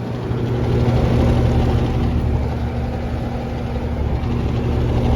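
Trane XR13 heat pump outdoor units running in heat mode, iced over: a steady hum with a constant tone over a low rumble and the rush of the fan.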